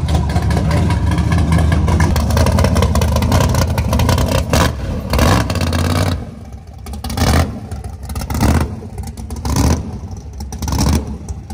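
Large car engine running loud and steady, then revved in short blips about once a second for the last few seconds.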